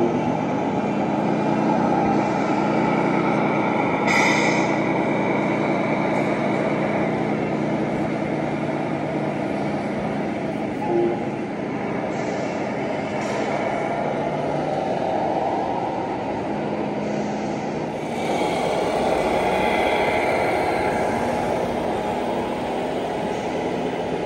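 Scale RC trucks driving past, their sound modules playing a steady truck-engine rumble along with the running gear. There is a brief higher-pitched burst about four seconds in.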